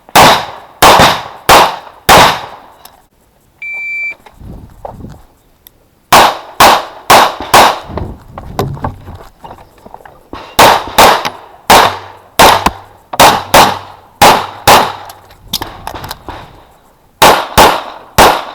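CZ Shadow 2 9mm pistol fired in quick strings of shots, mostly in fast pairs. A shot timer's start beep sounds about four seconds in, and shooting resumes about two seconds after it.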